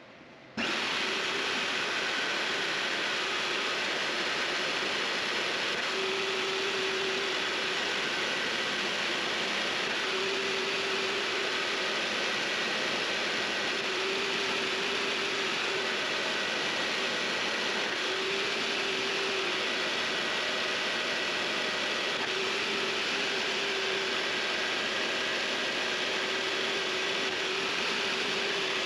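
Vevor MX400 mini lathe running steadily, with a faint hum that swells and fades about every four seconds.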